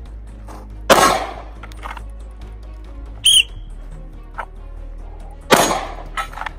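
Two handgun shots, about a second in and again near the end, each a sharp crack with a ringing tail. Between them comes one short, high whistle blast: the signal to draw and fire.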